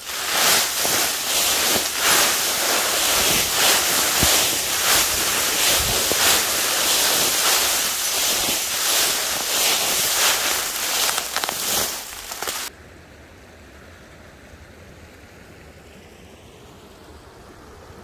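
Footsteps crunching and rustling through deep dry fallen leaves, a dense run of crackles that cuts off abruptly about two-thirds of the way through. After that only a faint steady hiss remains.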